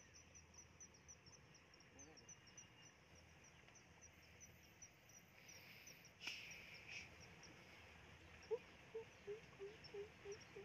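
Faint insect chirping: a rapid, even train of high chirps, like crickets in the grass. A single click comes about six seconds in, and near the end an animal gives a run of short, low calls, about three a second.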